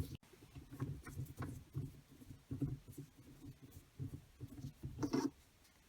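Toyota Aygo gear knob being twisted anti-clockwise by hand off its threaded gear lever: faint, irregular rubbing and scraping of hand and knob as it turns, with a slightly louder brush a little after five seconds in.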